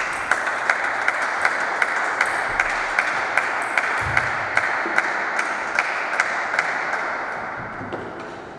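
A sharp click as it begins, then applause with steady clapping about two or three claps a second running through it, fading away near the end.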